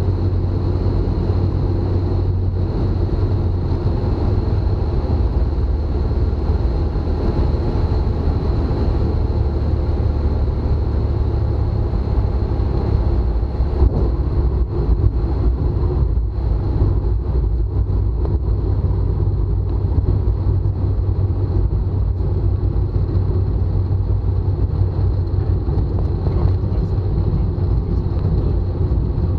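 Tecnam light aircraft's engine and propeller droning steadily at low power, heard inside the cockpit during the landing approach. About halfway through the wheels touch down, with a few bumps, then a rolling rumble as the aircraft slows.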